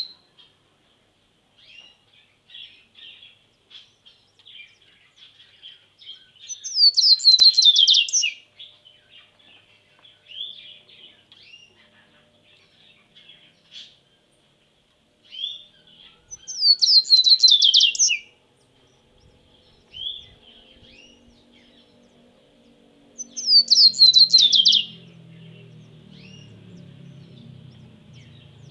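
Cage songbirds singing. One bird repeats a loud, fast phrase three times, each falling in pitch and lasting about a second and a half, while softer chirps carry on between phrases. A low hum joins in the last third.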